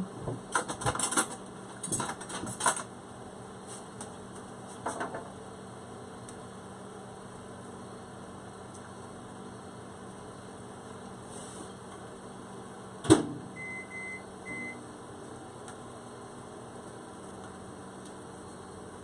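Cooking clatter of utensils and pans for the first few seconds, then a steady low hum. About 13 seconds in comes a sharp knock, followed by two short electronic beeps from a kitchen appliance.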